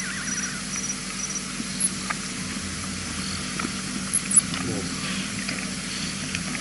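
Night-time bush ambience from a wildlife camera's outdoor microphone: a steady hiss with a low hum, a faint high insect chirp pulsing evenly in the first second or so, and scattered small clicks, the sharpest about four seconds in.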